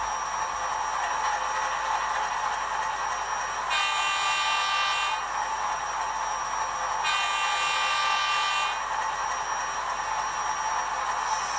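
HO scale model of an NSWGR 44 class diesel, its DCC sound decoder playing the Alco diesel engine running through the model's small speaker. The horn sounds twice, about 4 and 7 seconds in, each blast lasting about a second and a half.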